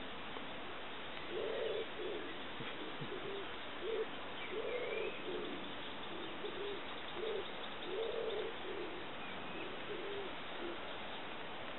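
Male little bittern singing: a series of short, low croaking notes, the loudest coming about every three seconds with fainter ones between.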